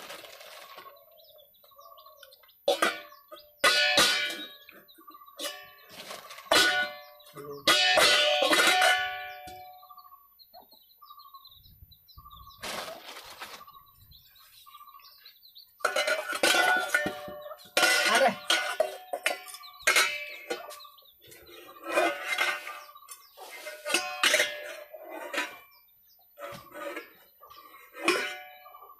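Stainless steel pots, bowls and lids clanking together as a toddler bangs and stacks them: a string of metal knocks in bursts, many followed by a short ringing tone.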